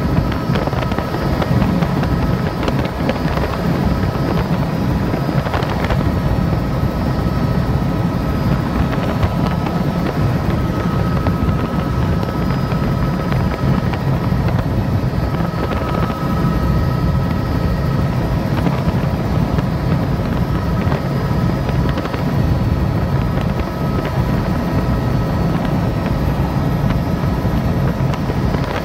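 Helicopter engine and rotor running steadily in flight, heard from aboard: a constant low drone with a thin steady whine above it.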